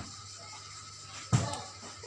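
A single thump about one and a half seconds in, an object set down on a tabletop, over a faint low steady hum.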